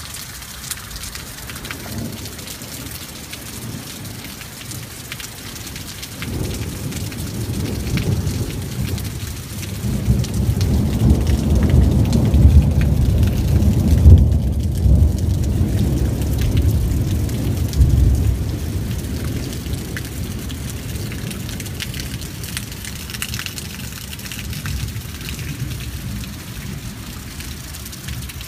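Thunderstorm: steady rain hissing throughout, with a long roll of thunder that builds about six seconds in, is loudest through the middle, and slowly fades away.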